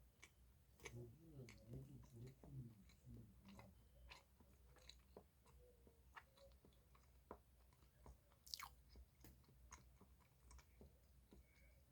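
Faint chewing of a soft chocolate roll cake, with scattered small mouth clicks.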